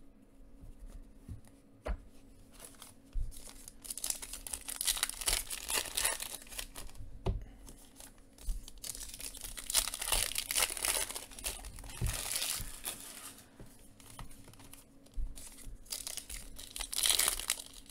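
Foil wrappers of Panini Phoenix football card packs crinkling and tearing as the packs are handled and ripped open, in irregular rustles with small clicks.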